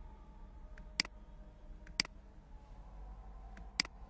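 Computer mouse clicking three times, single sharp clicks: two a second apart, then one nearly two seconds later, over a faint steady low hum.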